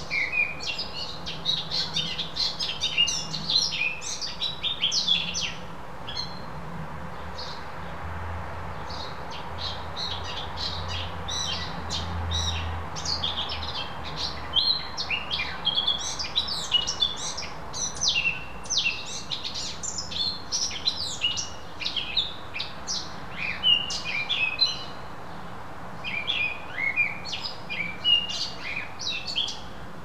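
Small songbirds chirping and singing in quick bursts of short, high notes, with brief lulls between the bursts.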